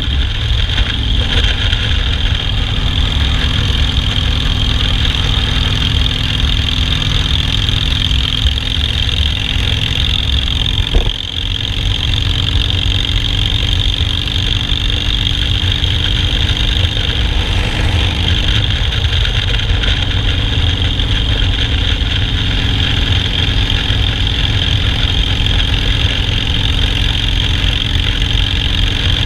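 Harley-Davidson Softail Standard's V-twin engine running steadily, with one sharp click about eleven seconds in.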